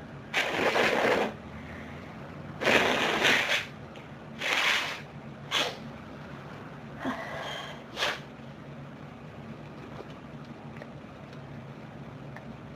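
A person blowing their nose hard several times, clearing it during a sneezing fit. The blows are about a second long at first and get shorter and weaker after about five seconds.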